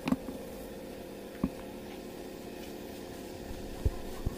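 Air compressor running with a steady hum, punctuated by four short, sharp knocks.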